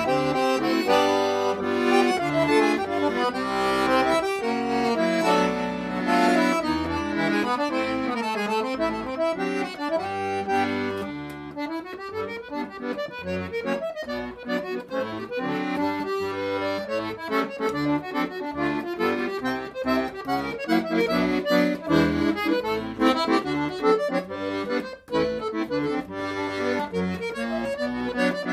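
Instrumental background music that plays continuously, dipping a little in level about eleven seconds in.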